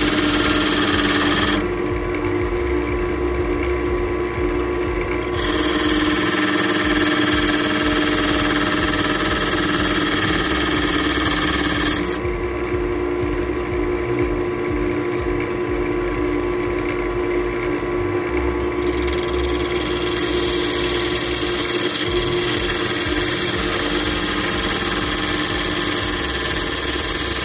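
Wood lathe running with a steady hum while a turning gouge cuts into a spalted beech bowl. The cutting comes in three long stretches of loud hissing shaving noise, with two quieter spells in between where only the lathe runs.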